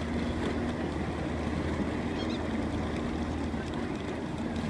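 Motorboat engine running with a steady drone.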